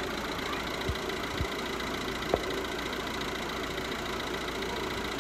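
Car engine idling steadily, with a few soft low knocks in the first half.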